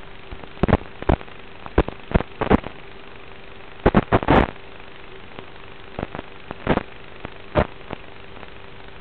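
Analog FPV video link's audio channel: a steady hiss with a faint hum, broken by loud, short crackles of static in clusters, the worst about four seconds in, as the radio signal breaks up.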